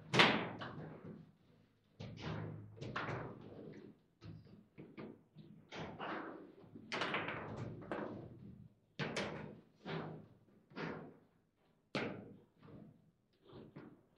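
Table football game in play: sharp knocks and thuds as the plastic figures strike the ball and the rods and ball hit the table, at irregular intervals. The loudest hit comes right at the start.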